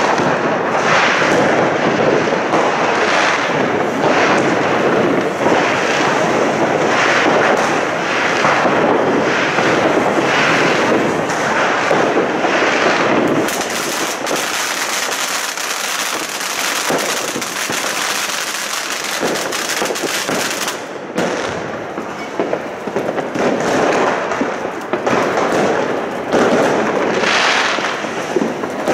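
Fireworks: ground fountains hissing as they spray sparks, with a steady, unbroken hiss for several seconds around the middle, amid crackling and firecracker pops.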